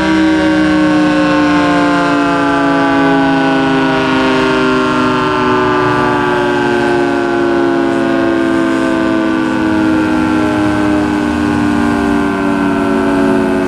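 Federal Signal 3T22 three-tone electromechanical outdoor warning siren sounding a loud, steady chord whose pitch drifts slowly lower.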